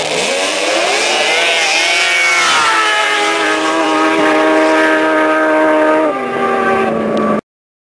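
Several snowmobile engines revving hard as the sleds launch in a drag race. Their pitch climbs over the first two to three seconds, then holds high and steady, drops slightly about six seconds in, and the sound cuts off abruptly near the end.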